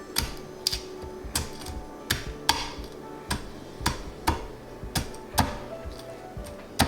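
Knife blade knocking on a cutting board in irregular sharp strikes, about two a second, while cutting through a triggerfish's tough back to open it for skinning; background music plays underneath.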